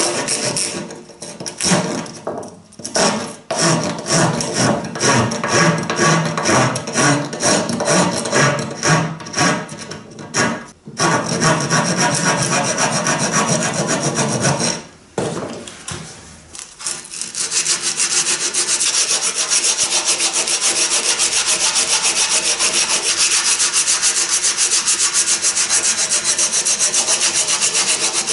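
A rasp scraping the rounded end of a wooden spar in back-and-forth strokes, about two a second. Past the halfway mark the strokes give way to quicker, even rubbing: the spar end being sanded by hand.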